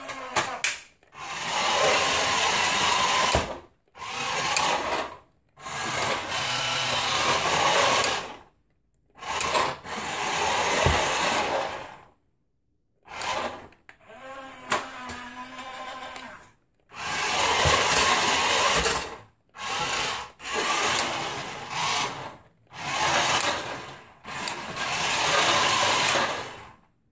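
Electric motors of a remote-control toy car whirring in a dozen or so bursts of one to three seconds, with short silences between, as it drives on a hard wooden floor and its body opens into its missile-launcher shape.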